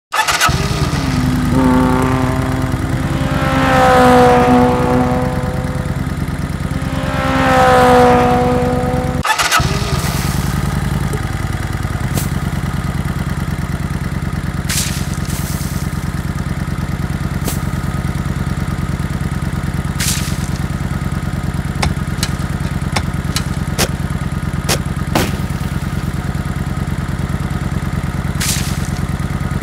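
An engine runs steadily on site. In the first nine seconds a pitched whine rises and falls twice, and a few short sharp knocks come later.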